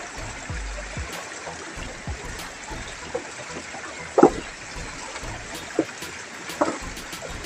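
River water flowing and trickling steadily, with a few short sharp sounds over it, the loudest about four seconds in and another shortly before the end.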